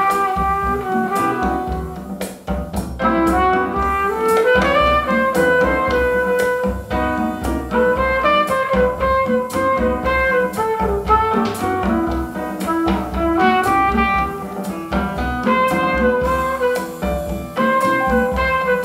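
Instrumental break of a song played through a JBL 4305P studio monitor: a lead melody line over bass and steady drum hits, with no vocals.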